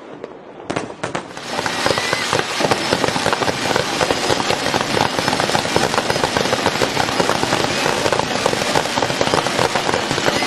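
Fireworks crackling: a few separate pops, then from about a second and a half in a dense, continuous crackle of countless small bangs, like heavy rain.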